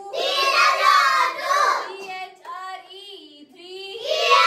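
Children's voices singing: a loud phrase over the first two seconds, softer singing in the middle, then loud again near the end.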